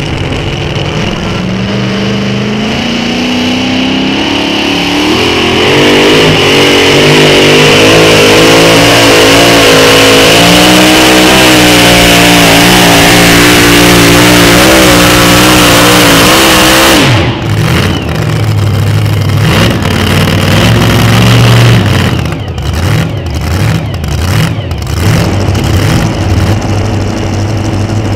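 Supercharged engine of a two-wheel-drive pulling truck at full throttle under load as it drags the sled, its pitch climbing and wavering for over ten seconds. About two-thirds of the way in it drops off sharply to a rough, lower running with a few short revs.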